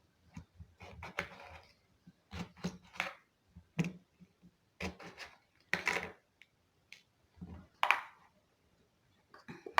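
Short knocks, clinks and scrapes at irregular intervals from kitchen containers and food being handled.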